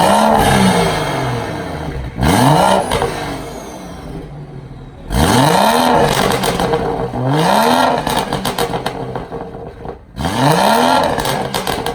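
BMW turbocharged inline-six with a freshly installed aftermarket exhaust, free-revved five times from idle. Each rev climbs quickly and drops back to idle, the first falling away more slowly.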